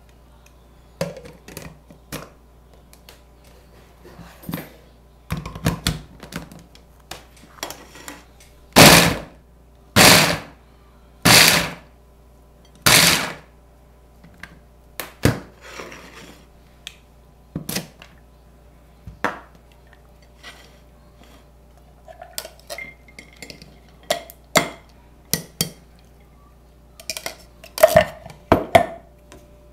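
Ninja Master Prep food chopper pulsed four times in short bursts, its blades chopping carrot chunks in the bowl. Around the pulses come clicks and clunks of the blade, bowl and motor head being fitted, and near the end a clatter of the chopped carrot being emptied into a glass dish.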